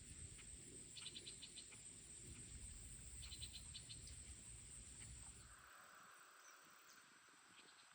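Near silence with a faint, steady high-pitched insect trill, most likely crickets, and two brief runs of rapid chirping pulses. A low rumble stops about halfway through.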